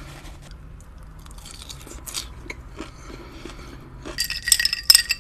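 Chewing and crunching of food at the mouth, soft crackly bites. About four seconds in, a louder burst of sharp clinking and rattling.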